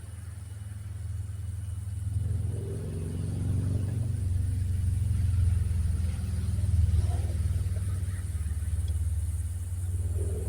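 Low engine rumble of a motor vehicle that swells over several seconds and eases off near the end.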